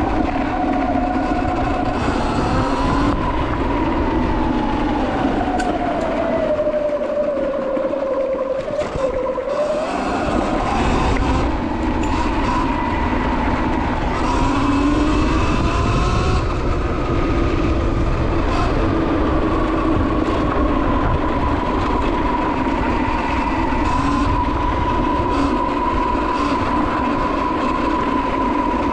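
Sur Ron X electric dirt bike's motor whining under way, its pitch sinking to a low point about eight to nine seconds in, then rising and holding steady as the bike picks up speed. A dense low rumble of wind on the microphone and tyres on the dirt track runs underneath.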